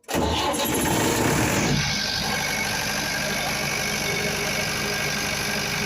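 Diesel generator engine running with a rapid, even firing beat. It comes in suddenly, louder for about the first two seconds, then settles to a steady run.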